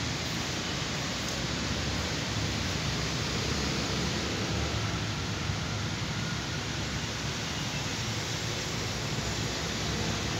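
Steady, even rushing noise with nothing standing out from it.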